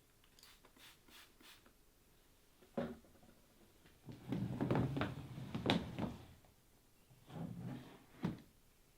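Household handling knocks and clatter: faint clicks at first, a sharp knock about three seconds in, a longer rumbling clatter through the middle, and another clatter ending in a sharp knock near the end.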